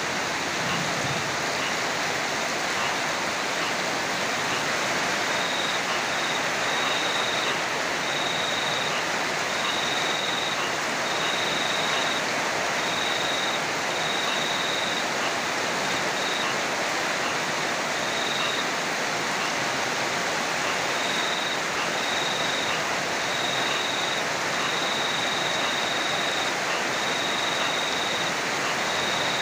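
Heavy rain falling steadily, an even hiss with no thunder. A thin high tone comes and goes in short stretches throughout.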